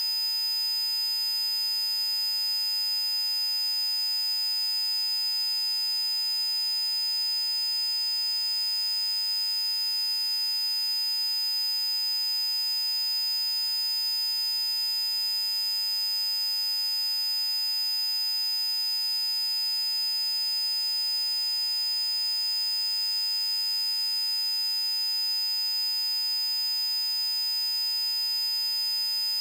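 Synthesized frequency-therapy tones: several steady electronic pitches sounding at once, with a high whine the loudest, holding unchanged with no rhythm or pitch change.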